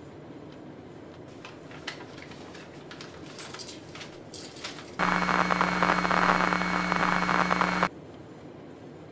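A sheet of paper rustling and crumpling as it is handled. Then, about five seconds in, a loud burst of harsh static-like noise with a steady buzzing hum, which cuts off suddenly about three seconds later.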